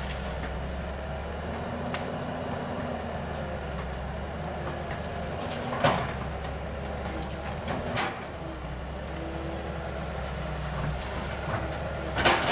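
Excavator's diesel engine running steadily, with three sharp metallic clanks about 6 seconds in, 8 seconds in and near the end.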